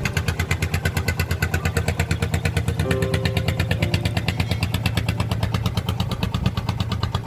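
Fishing boat's diesel engine idling, a steady, even thudding of about eight or nine beats a second.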